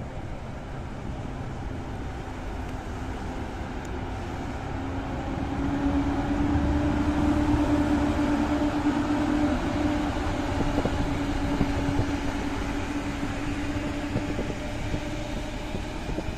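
EP07 electric locomotive hauling a passenger train passes close by, with a steady electric hum loudest about six to ten seconds in. This is followed by the rolling rumble of the passenger coaches.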